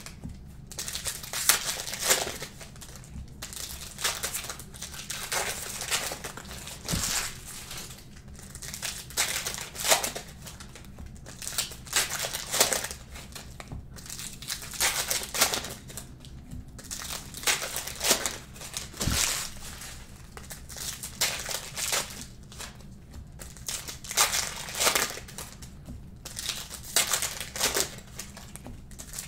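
Plastic trading-card pack wrappers crinkling as packs are handled, in irregular bursts of crackle about once a second.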